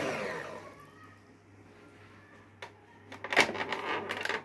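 Electric hand mixer switched off, its motor winding down over about the first second. Then, after a short lull, a few sharp clicks and clacks as the mixer and its metal beaters are handled at the mixing bowl.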